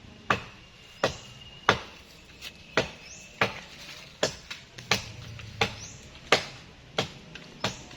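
A steady series of heavy blows struck into wood, about three every two seconds. Some leave a brief high metallic ring.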